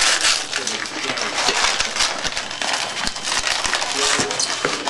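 Packing material crinkling and rustling in close-up as a small wrapped container is handled and unwrapped, with many quick crackles.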